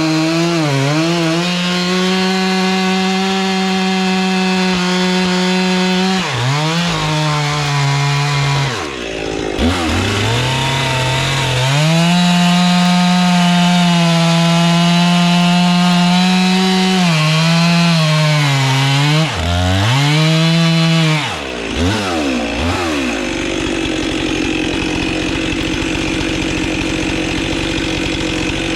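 Gasoline chainsaw cutting through logs: the engine is held at high revs through long cuts, its pitch dipping and rising again several times as the throttle is eased between cuts, then it drops to a lower, rougher running sound for the last few seconds.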